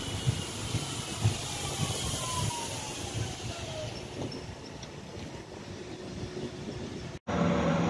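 Red DB Regio electric multiple unit running in past the platform: wheel and running-gear rumble under an electric motor whine that falls steadily in pitch as the train slows. Near the end it cuts abruptly to the louder, steady hum of a locomotive.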